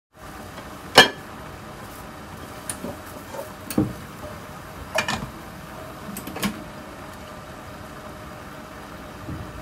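Clanks and knocks of a nonstick frying pan and a plate being handled while an omelette is flipped and turned out of the pan, the loudest knock about a second in, over a steady kitchen hum.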